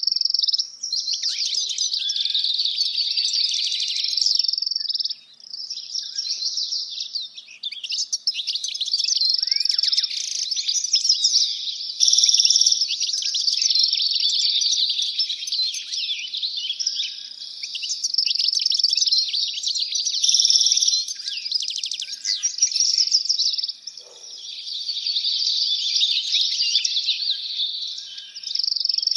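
Many small birds chirping and twittering at once in a dense, continuous high-pitched chorus, with brief lulls about five seconds in and again near the end.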